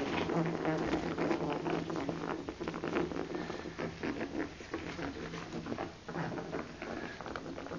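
Pet rats moving in a bubble bath: a continuous run of small, irregular splashes and pattering in the water, over a steady low hum.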